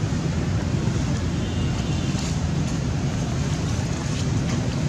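Steady wind rumble on the microphone: a continuous low noise at an even level, with no distinct events.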